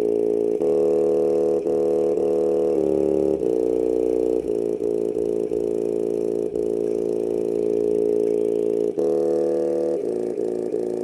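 Bare woofer driver wired to a JBL Charge 3's amplifier, playing bass-heavy music: low notes rich in overtones that change every half second or so, with one note held for about five seconds in the middle.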